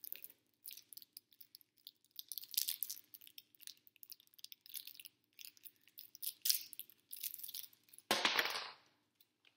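A candy wrapper crinkling and rustling in the hands as it is worked open, with a louder, longer tearing rustle about eight seconds in.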